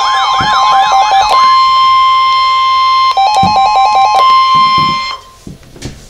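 Weather radio alert alarm: a warbling siren tone sweeping up and down for about a second and a half, then the steady NOAA Weather Radio warning tone with repeated beeps layered over it, which cuts off suddenly about five seconds in. It signals that a warning, here a winter storm warning, is about to be broadcast.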